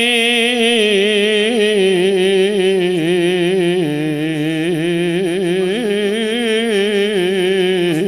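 A man's voice chanting the Arabic opening of a Friday-style sermon (khutbah) in a slow melodic recitation: one unbroken held note, wavering and ornamented, stepping down in pitch about four seconds in.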